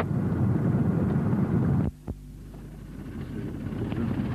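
Loud rumbling noise of a car driving on a gravel road, heard from inside the car. It cuts off abruptly about two seconds in, and a quieter steady engine hum follows and slowly grows louder.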